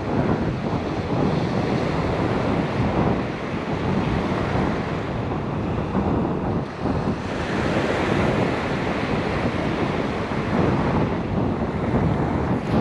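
Strong wind buffeting the microphone over the steady rush of breaking ocean surf, swelling and easing in loudness.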